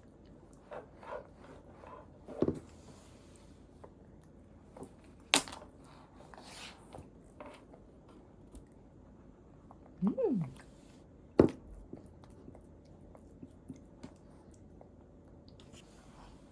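A nine-month-old baby eating spoon-fed puree: soft mouth and lip smacking with scattered small clicks, two sharper clicks about five and eleven seconds in. There is a short falling vocal sound about ten seconds in.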